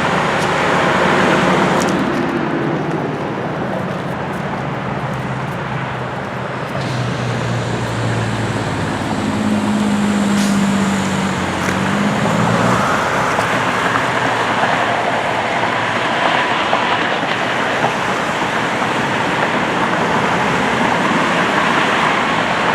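Road traffic passing steadily, with one vehicle's engine tone standing out for a few seconds about ten seconds in.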